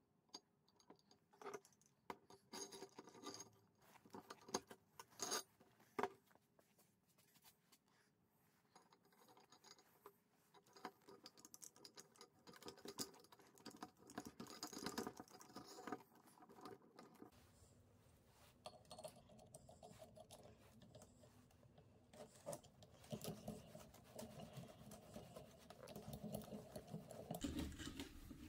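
Faint, scattered clinks and taps of small steel parts being handled and fitted together by hand: a rod and bar going into a steel tube, a nut on a threaded spindle. A faint low steady hum comes in about halfway through.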